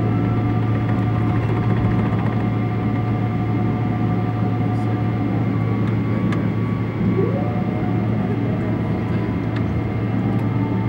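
Steady jet cabin noise inside a taxiing Boeing 777-300ER: its engines at taxi power give a low hum with several held whining tones over a rushing bed. About seven seconds in, a tone briefly rises in pitch.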